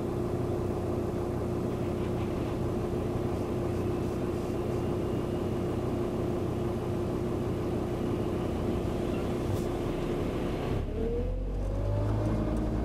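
An engine running steadily. About eleven seconds in, its pitch glides up and it grows heavier in the low end.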